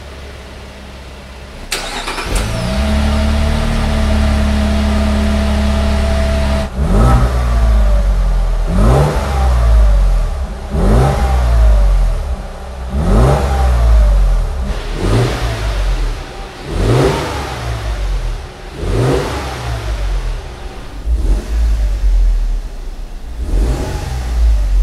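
2025 Lexus GX 550's twin-turbo V6 starting about two seconds in and settling into a steady idle, then revved in about nine quick blips, roughly one every two seconds, each rising and falling in pitch.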